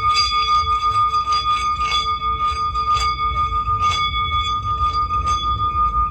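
Meditative healing-sound music: a held high ringing tone with shimmering overtones and a wavering lower tone over a pulsing low drone, with soft strikes about once a second.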